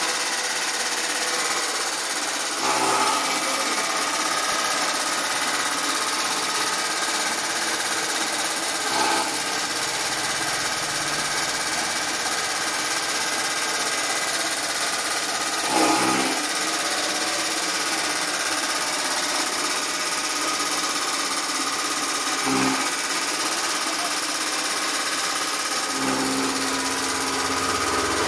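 Small electric chaff cutter running steadily while chopping dry straw, its motor and cutter giving a loud even hum with a steady high tone. A few brief louder moments stand out over the running noise.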